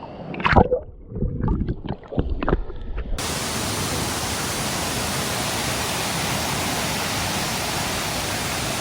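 A few irregular knocks and splashes, then from about three seconds in the steady rush of a waterfall's falling water, which starts abruptly.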